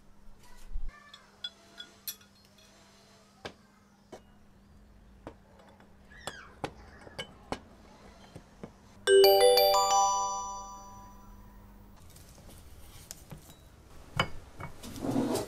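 Small metal clicks and taps as bicycle headset parts are fitted together, with one metal part struck about nine seconds in that rings for about a second before dying away. A rustle of handling near the end.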